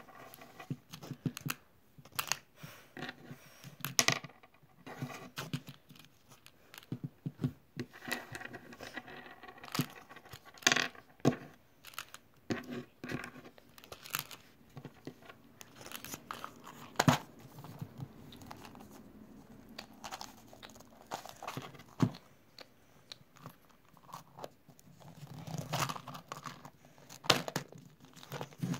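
Irregular crinkling and tearing of plastic packaging, broken by sharp clicks and knocks of a plastic Easter egg being handled and opened.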